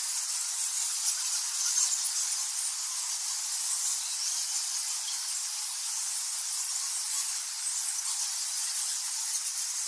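Bats chittering: a steady, high-pitched stream of rapid squeaks with a hissy edge, without a break.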